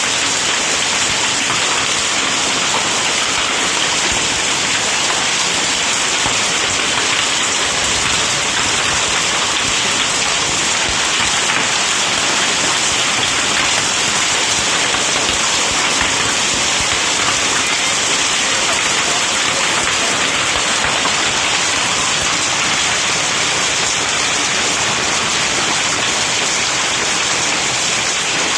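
Heavy downpour of rain and hail during a hailstorm: a dense, steady hiss of countless small impacts pelting down without letup.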